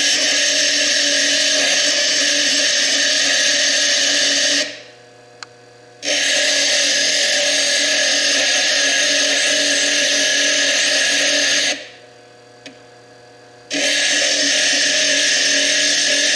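Foredom bench lathe grinding fire agate with an 80-grit quarter-inch burr, a steady high-pitched grinding as the chalcedony cap over the stone's fire layer is worn away. The grinding breaks off twice, for a second or two each time, about five and twelve seconds in, then starts again.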